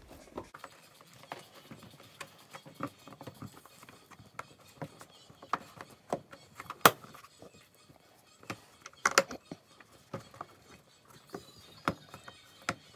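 Hard plastic ATV body panel being handled and pressed into place by hand: scattered light clicks and knocks, the sharpest about seven seconds in and a short cluster about nine seconds in.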